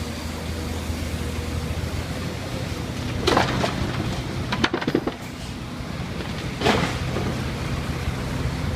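Excavator's diesel engine running steadily under load, with loud metallic clanks and scrapes about three seconds in, around five seconds and near seven seconds.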